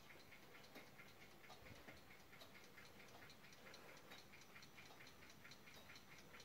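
Brass Observator Rotterdam ship's clock ticking faintly with a quick, even beat.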